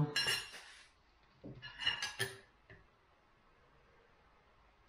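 A few short clinks and scrapes of a spoon against a soup bowl about one and a half to two and a half seconds in, after a brief rustle at the start.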